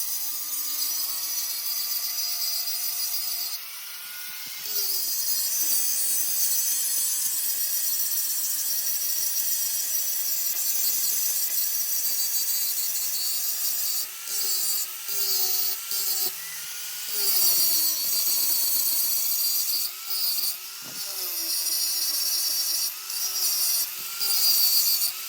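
Power tool working metal, its motor pitch dipping and recovering as it takes the load, over a steady high hiss. In the second half it breaks off briefly several times.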